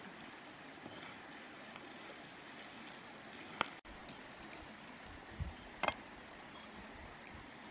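Shellfish cooking in a pan over a wood fire, stirred with a knife: a steady hiss of the simmering pan and running stream water, with a few sharp clicks of the blade against the shells and pan, once about halfway and twice in quick succession a little later.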